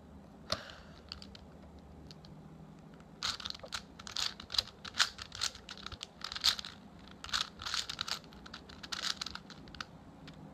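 A 4x4 Rubik's cube being turned by hand: plastic layers clicking and rattling. There is a single click about half a second in, then fast bursts of turning from about three seconds in until near the end.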